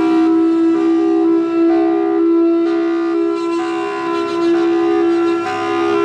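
Emergency alert alarm tone: a loud, steady low drone with higher tones above it that step to new pitches every half second to a second.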